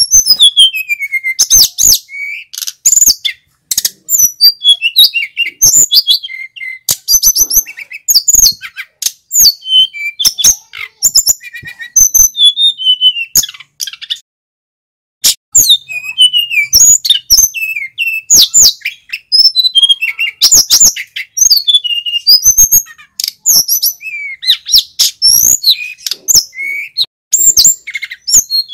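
Male sikatan gunung (a mountain flycatcher) singing in full voice: a long, rapid run of high chirps, trills and down-slurred whistles, broken once by a pause of about a second halfway through.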